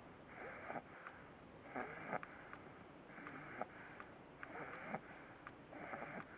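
Pug snoring quietly in his sleep: a noisy breath about every one and a half seconds, five in all, each ending in a short sharp click.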